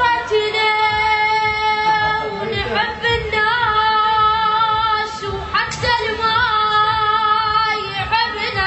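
A solo voice singing an Iraqi-style melody over backing music, holding long notes with vibrato in three or four drawn-out phrases.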